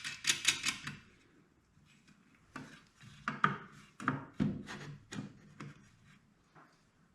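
Quick rubbing or scraping strokes, about six a second for the first second, then after a pause a run of separate knocks and scrapes.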